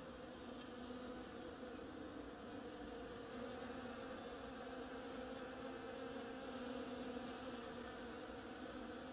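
Bees buzzing as they forage on the flowers of an oriental creeper vine: a faint, steady hum of wingbeats, a little louder about halfway through.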